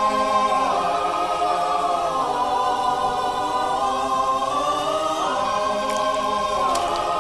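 Choir music holding long chords that shift every couple of seconds.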